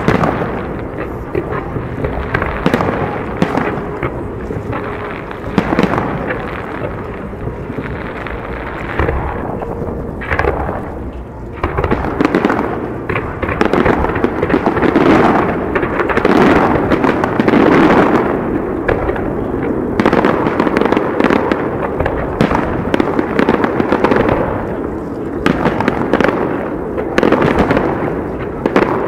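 Aerial fireworks display: a dense run of shell bursts and booms with crackling, going on without a break and growing louder about twelve seconds in.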